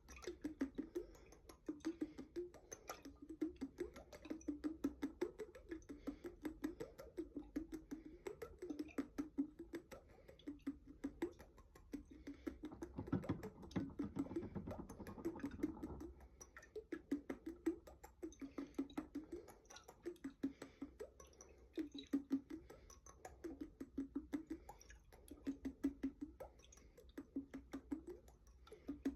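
A glass jar holding water being tapped and handled: quick light taps, with a short ringing tone from the jar about once a second and a fuller stretch of sound about halfway through.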